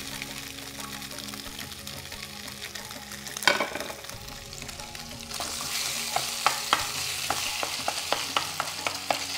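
Onions and crumbled silken tofu sizzling in oil in a non-stick wok, with a single sharp knock about three and a half seconds in. From about halfway the sizzle gets louder, and a wooden spoon clacks against the pan two or three times a second as it breaks up the tofu.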